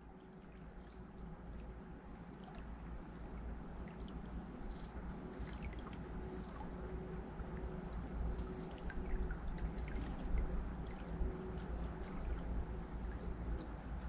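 River water flowing steadily, with many small birds chirping in short, high calls throughout. The sound fades in over the first several seconds.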